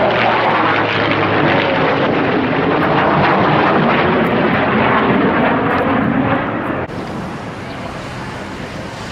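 Airplane flying past at an air show, its engine loud with a pitch that slowly shifts as it passes. About seven seconds in the sound drops abruptly to a quieter, steadier drone.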